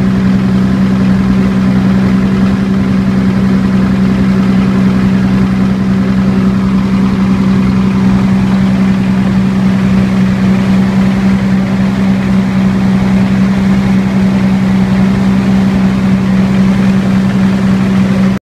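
Diesel generator engine running at a steady speed on diesel with propane added through a dual-fuel conversion, a constant-pitched hum. The sound cuts off suddenly near the end.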